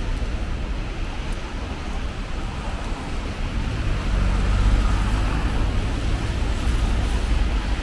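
City traffic on rain-wet streets: steady tyre hiss and engine noise from passing cars, with a low rumble that grows louder about halfway through.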